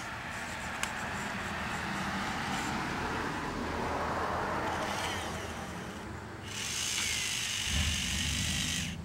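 Small electric gear motors of a radio-controlled car's grabber arm whirring in spells as the claw works to grip a rock, with a high gear whine in the longest spell near the end.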